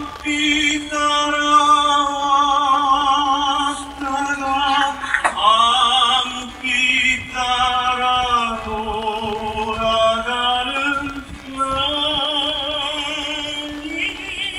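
Slow ballad music: a long-held melody line with heavy vibrato, sung or played, over a low sustained note. The notes swell and fall, and the melody dips lower for a few seconds in the middle.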